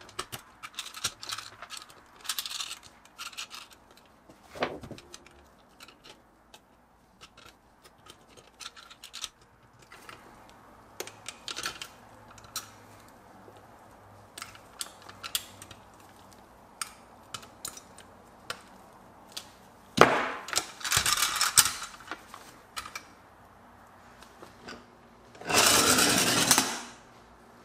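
Small clicks and taps of metal toy-truck parts being handled and pressed together by hand, with a louder burst of scraping about two-thirds of the way through. Near the end comes a couple of seconds of rolling noise as the small toy truck's wheels run across a wooden board.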